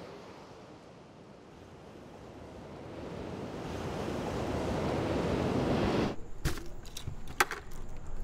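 Ocean surf breaking on the shore, swelling steadily louder over several seconds, then cutting off abruptly about six seconds in. A few sharp clicks and knocks follow.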